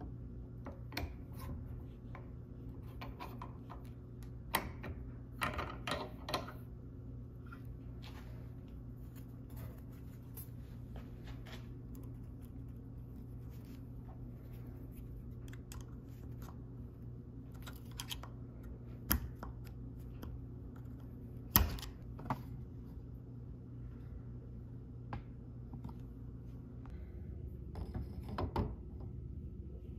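Light clicks and knocks of small metal engine parts being handled during assembly, scattered and irregular over a steady low hum, with one sharp, louder click about two-thirds of the way through.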